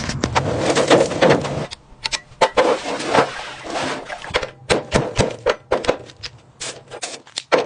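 Workshop clatter: a dense run of clicks and knocks over a steady low hum, which stops a little under two seconds in, then separate sharp knocks and clicks at irregular intervals, like tools working on metal parts.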